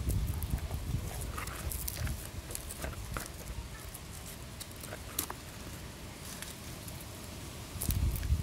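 A small metal blade cutting and scraping at the fibre binding wrapped round the fused trunks of a potted tree. Scattered sharp clicks and snips come with the rustle of handling, over a low rumble that is stronger at the start and again near the end.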